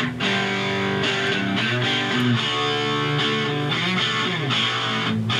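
Recorded music playing from a phone through small test speakers driven by a 15-watt-per-channel stereo amplifier kit, with very little bass. Both channels are working: the freshly built amplifier is passing audio cleanly.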